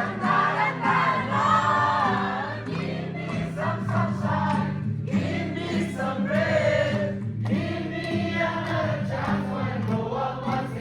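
A group of voices singing with musical accompaniment, with steady low bass notes underneath.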